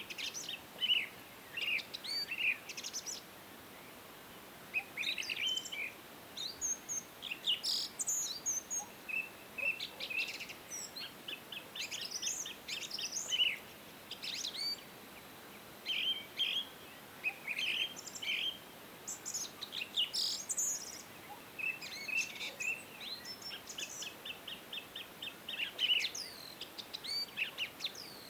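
Several songbirds singing and chirping, with short phrases, quick trills and rapid note series overlapping one another, over a faint steady background hiss.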